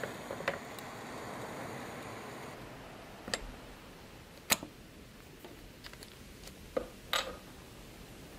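Gas torch hissing, dying away about two and a half seconds in, then about five sharp metallic clicks and taps, the loudest about four and a half seconds in, as pliers pick at a small copper piece and solder beads on a wooden workbench.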